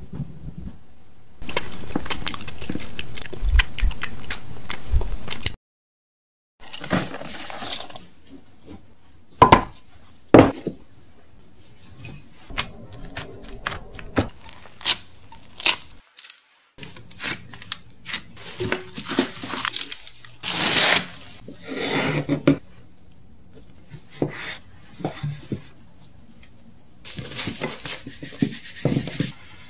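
Close-up kitchen preparation sounds: a series of clicks, knocks and scrapes of utensils, including a wooden pestle mashing cooked rice in a glass bowl. The sounds come in separate stretches with two short gaps of silence.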